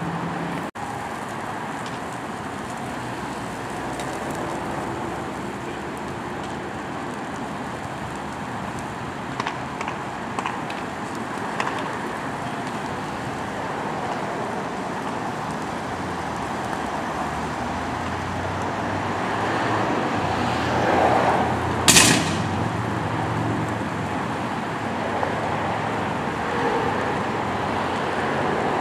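Car burning fully involved: a steady rush of flames and road traffic with a few small crackling pops, and one sharp bang from the burning car about two-thirds of the way through.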